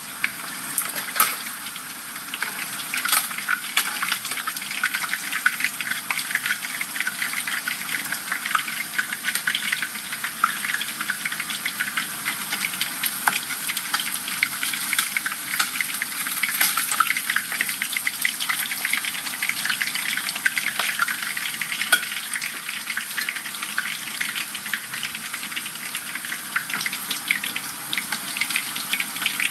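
Whole dorado fish deep-frying in hot oil in a pan: a steady dense sizzle full of small crackles and pops, with a few sharper clicks.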